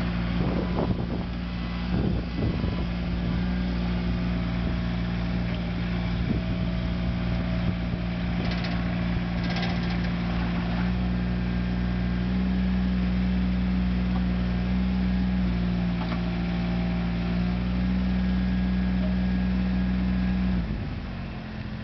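CAT mini excavator's diesel engine running steadily, with a few knocks about a second or two in. It picks up slightly about halfway through, then drops away near the end as it shuts down or throttles back.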